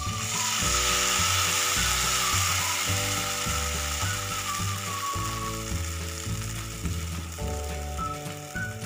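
Roti jala batter sizzling in a hot oiled pan as it is drizzled from a squeeze mould in thin streams. The sizzle is loudest at first and fades gradually.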